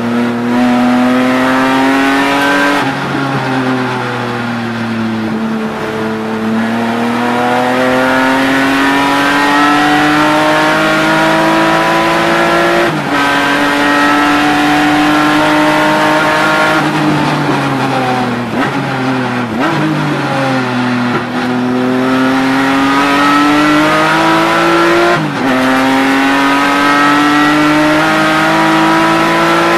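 BMW E36 M3 race car's straight-six engine at full racing effort, heard inside the cabin. The revs climb through the gears with sudden drops at upshifts about thirteen and twenty-five seconds in, and fall in steps through downshifts under braking around the middle.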